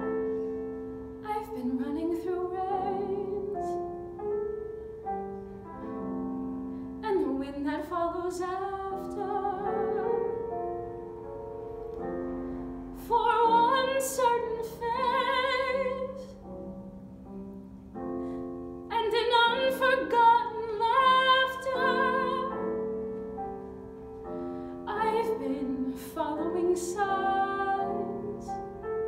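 A woman singing a musical-theatre ballad in a classical style with vibrato, over piano accompaniment, in phrases of a few seconds with short breaths between.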